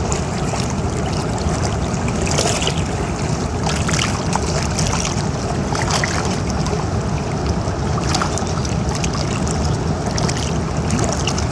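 River water rushing and splashing over a steady low rumble, with frequent small splashes throughout.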